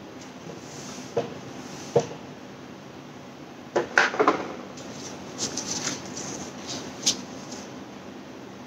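Sharp clicks and knocks of small objects being handled and set down, loudest in a quick cluster about four seconds in, followed by lighter rustling and one more click.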